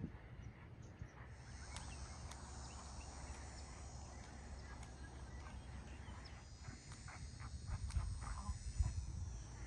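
Soft, irregular thuds of a horse's hooves on sand arena footing, under a steady low wind rumble on the microphone, with faint high chirps from birds or insects.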